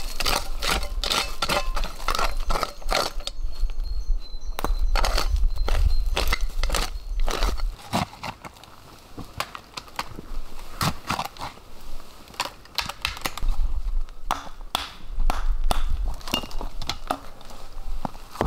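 Digging in leaf litter and soil with a small shovel, a run of scraping and crunching strokes, then later stones knocked against one another as they are lifted and set into a stone wall, sharp separate clacks.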